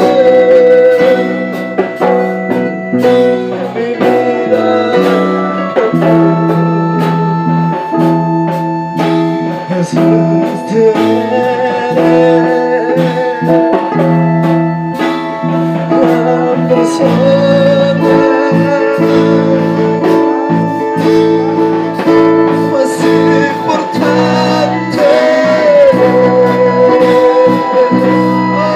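Live worship music from a band: drums keep a beat under held chords, with a singer's voice wavering above them.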